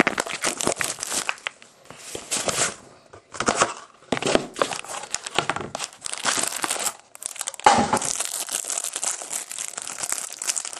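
A trading-card box being opened by hand and a pack's clear plastic wrapper crinkling as it is handled and pulled off the cards: irregular crackles in short spurts with brief pauses.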